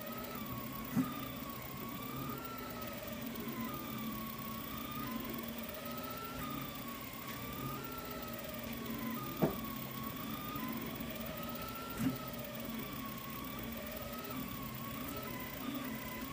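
Delta 3D printer running a print: the stepper motors whine in a pitch that rises and falls over and over as the print head sweeps its curves, over a steady hum. Three sharp clicks stand out, about a second in, near the middle and a little later.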